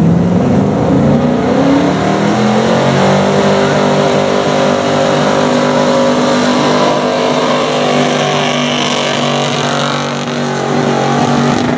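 A Dodge pickup's gasoline engine at full throttle, pulling a weight-transfer sled. It climbs in pitch over the first couple of seconds, then holds at high revs for the rest of the pull.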